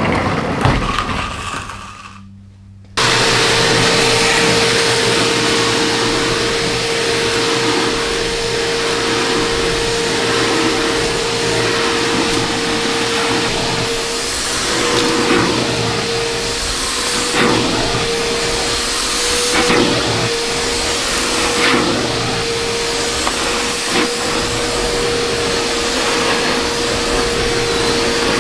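A small electric motor on a cleaning tool starts suddenly about three seconds in and runs steadily with a constant whine, its pitch dipping slightly a few times as it is worked.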